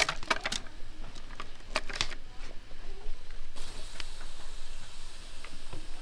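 A quick run of sharp clicks and knocks in the first two seconds, then softer scattered ticks over a faint hiss.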